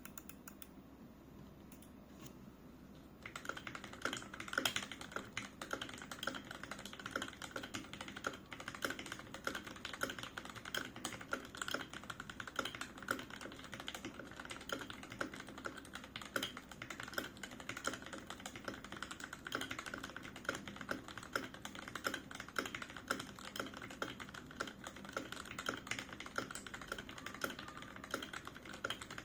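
Typing on a Keychron K6 mechanical keyboard with Gateron Milky Yellow linear switches and stock ABS keycaps. A few scattered keystrokes give way, about three seconds in, to fast continuous typing.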